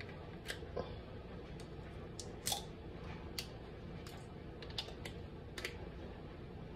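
About ten sharp, irregularly spaced clicks and taps from a Worcestershire sauce bottle being shaken and tapped upside down over a glass bowl, over a faint steady low hum.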